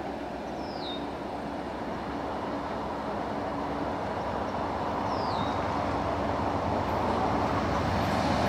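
GE P42DC diesel locomotive hauling a passenger train on the approach, its engine and wheel noise growing steadily louder. Two short high chirps falling in pitch, near the start and about five seconds in.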